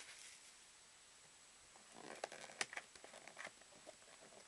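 Fingers handling and picking at a cardboard trading-card box, trying to get it open: faint scattered clicks and scratches starting about two seconds in.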